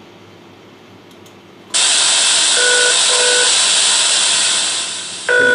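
Loud, steady white-noise hiss with its bass cut by an equalizer starts about two seconds in. Under it a telephone ringing tone sounds twice in short pulses, faint at first. The hiss eases down near the end, where the ring comes through louder.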